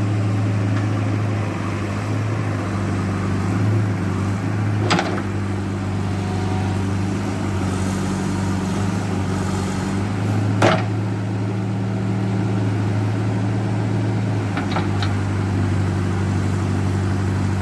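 JCB backhoe loader's diesel engine running steadily, with a sharp knock about five seconds in, a louder one after ten seconds, and a couple of faint clicks later on.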